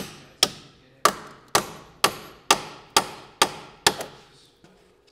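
A hammer tapping on the nuts threaded onto the ends of a Pontiac's front hub mounting bolts to drive the bolts out, the nuts keeping the threads from being damaged. About nine sharp strikes, roughly two a second, each with a short ring, stopping about four seconds in.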